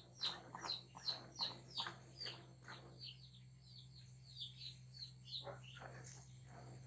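Milk squirting into a plastic bucket during hand milking of a cow: rhythmic squirts about three a second, which pause about three seconds in and then resume more faintly.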